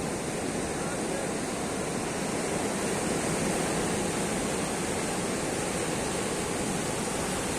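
Rough sea surf washing onto the shore: a steady, unbroken rush of waves.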